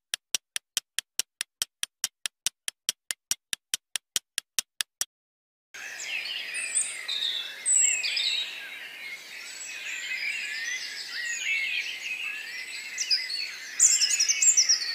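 A quick, even ticking of about four to five sharp clicks a second, a countdown timer sound effect, stops about five seconds in. After a brief gap a dense chorus of many birds singing and calling begins.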